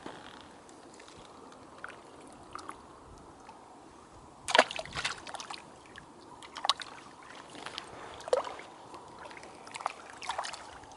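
Small lake waves lapping and slapping against a concrete shore edge, in irregular splashes over a low wash. The loudest slap comes about halfway through.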